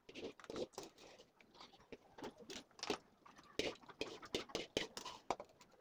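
Faint, scattered small clicks and taps of hands handling a circuit board and soldering iron while desoldering push-button switches.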